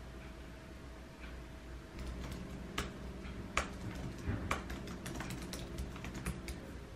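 Typing on a laptop keyboard: an irregular run of key clicks that starts about two seconds in.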